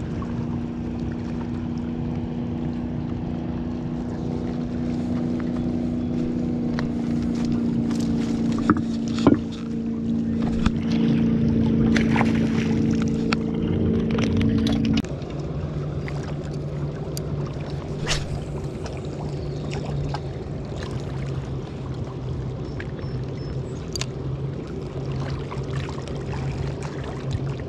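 Steady drone of a motorboat engine across the water, dropping abruptly to a lower hum about halfway through. Scattered clicks and knocks from handling the fishing gear sound over it.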